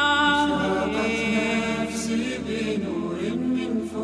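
Slowed-down, reverb-heavy a cappella Arabic nasheed: layered voices holding long, slowly gliding notes in harmony, with no clear words.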